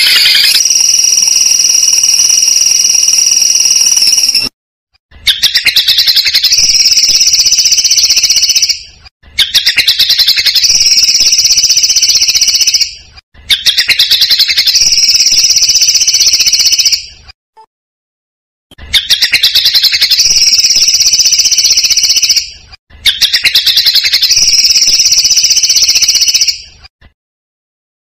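Songbird singing loud, repeated phrases of about four seconds, six in all with short gaps between. Each phrase opens with a rapid run of clicks and runs into a dense, high buzzing trill.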